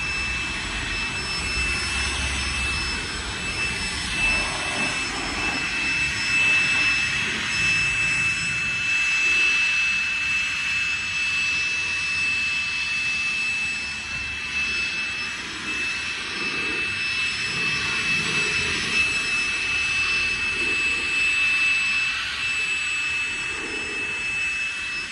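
Ryobi cordless leaf blower running steadily, blowing water off a wet car body: a rushing blast of air with a steady high fan whine, swelling and fading a little as the nozzle is swept across the car.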